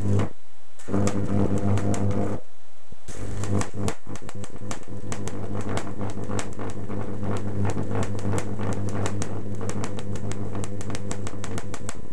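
High-voltage electric arc from two microwave-oven transformers at about 4000 volts: a loud mains buzz with rapid sharp crackling. The arc breaks off twice in the first three seconds and is struck again, then burns steadily.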